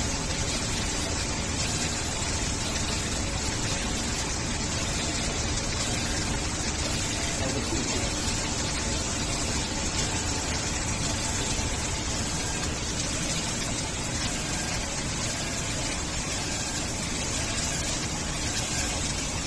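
Automatic stir-fry cooking machine running, its stirring arm turning smoked tofu and cured pork in the heated wok with a steady sizzling hiss.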